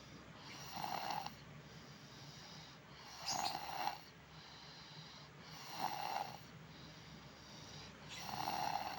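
Snoring in sleep: four loud snores in a slow, regular rhythm, about two and a half seconds apart, with quieter breathing between them.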